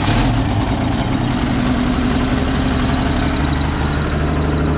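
1955 Chevrolet 6100 truck engine, just started, running at a steady idle.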